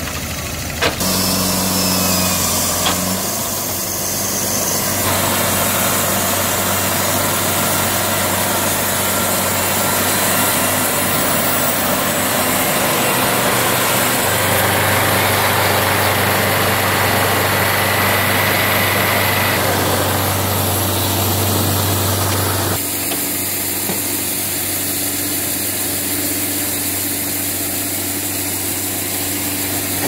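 Engines of a Wood-Mizer portable bandsaw sawmill and a log-loading tractor running steadily. The tone shifts abruptly several times, with one sharp knock about a second in.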